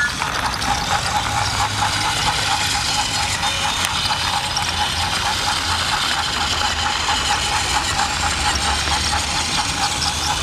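Battery-powered Thomas TrackMaster toy engine running along plastic track, its motor and gears whirring steadily with an even, rhythmic clicking.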